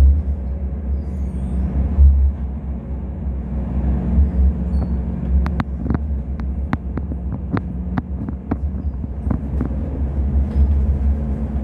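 Inside a Sheffield Supertram tram running along its track: a steady low rumble of the wheels on the rails with a constant hum. From about five to ten seconds in comes a run of a dozen or so sharp clicks and rattles.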